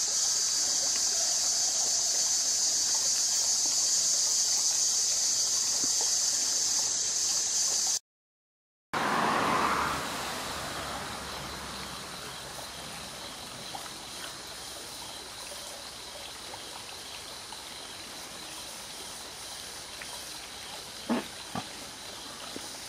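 Outdoor ambience: a steady high-pitched insect chorus for about eight seconds, cut off abruptly by a short gap of silence. After it comes a quieter steady rushing like running water, with two small knocks near the end.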